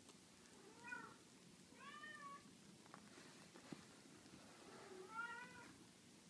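Six-day-old Scottish fold kittens mewing: three short mews that rise and fall in pitch, about a second in, at two seconds, and just past five seconds.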